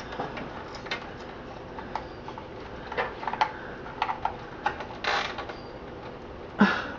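Scattered small clicks and rattles of computer cables and plastic connectors being handled inside a PC case, with two louder brief scrapes in the second half.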